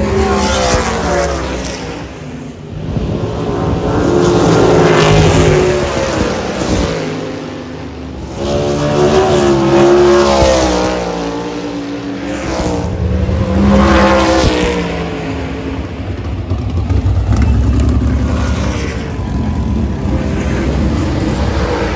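USAC Silver Crown race car engines running at speed past the dirt track's edge. It comes in several loud swells, each pass rising and then falling in pitch, and settles into a lower steady engine rumble near the end.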